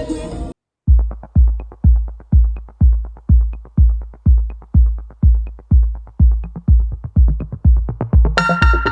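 Music: a song with singing cuts off about half a second in. After a brief silence an electronic dance track starts with a steady, loud kick drum at about two and a half beats a second, and synth chords come in near the end.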